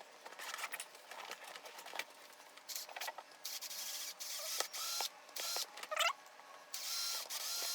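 Small power drill boring holes into a suitcase's hard plastic shell, run in a series of short spurts of under a second each, with a faint whine as it spins and one rising spin-up about six seconds in.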